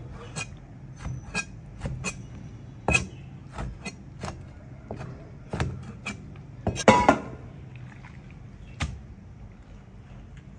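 Cleaver chopping moray eel meat on a plastic cutting board: irregular sharp knocks of the blade hitting the board, two or three a second, with a louder clatter about seven seconds in.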